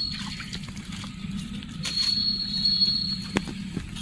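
Water splashing and sloshing as a hooked fish is hauled out of a pond on a fishing line, with a few sharp clicks near the end.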